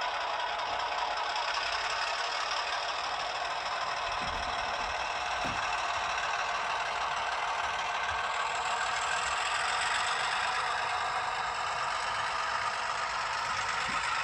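Diesel engine sound from the LokSound 5 sound decoder in an HO scale Atlas MP15DC switcher, played through the model's small speaker: a steady running diesel with a rattly edge as the locomotive moves.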